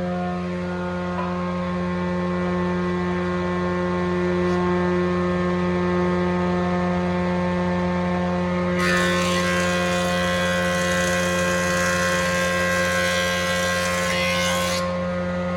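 Frommia combination planer-thicknesser running with a steady hum. A little over halfway in, the cutter block cuts into a board for about six seconds, a loud rushing cut over the motor, and then the machine runs free again.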